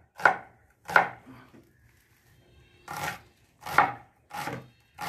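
Broad-bladed kitchen knife chopping a red onion on a wooden cutting board: about six sharp chops, with a pause of about a second and a half in the middle.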